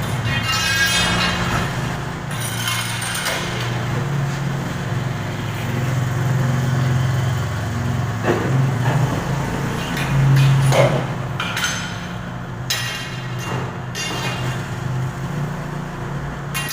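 A steady low mechanical hum with a few sharp knocks and clicks of hand work over it, about eight and eleven seconds in.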